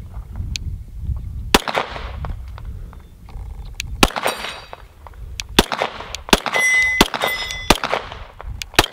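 Glock 34 9mm pistol firing about seven single shots at an uneven pace, spaced between roughly half a second and two and a half seconds apart.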